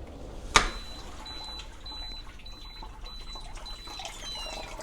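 Dishwasher running its wash program, water splashing and trickling inside the tub, with one sharp click about half a second in and a faint high whine that comes and goes.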